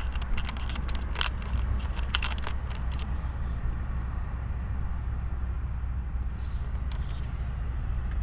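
Steady low rumble with a run of sharp clicks and crackles in the first three seconds, then only a few.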